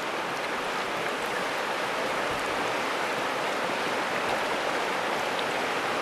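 Trout stream flowing: a steady, even wash of moving water.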